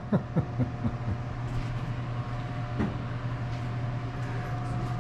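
A steady low mechanical hum, with a quick run of short sounds in the first second and one more near the middle.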